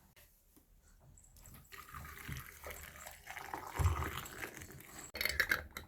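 Liquid sounds: a noisy water wash starting about one and a half seconds in, with a low thump near four seconds and a short clatter near the end.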